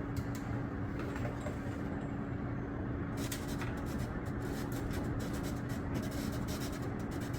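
Rapid clicking at a laptop, from its keys or mouse, starting about three seconds in, over a steady low hum.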